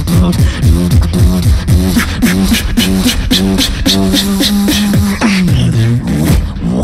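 Two beatboxers performing together into microphones: sharp snare and hi-hat sounds in a quick steady rhythm over a pitched vocal bass line sung in short rising-and-falling swells. The bass holds one long note near the middle, then slides down in pitch about five seconds in.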